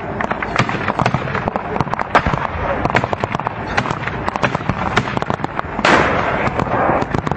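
Heavy gunfire in a battle: many sharp, overlapping shots in rapid, irregular succession. A louder, longer burst of noise comes just before six seconds in.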